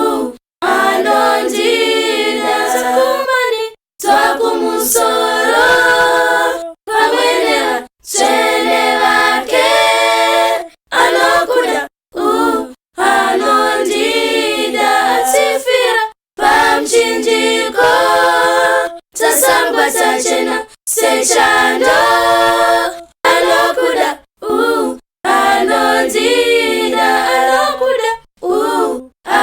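A cappella group of voices singing a hymn in Shona, with no instruments, in phrases of a few seconds separated by short breaks.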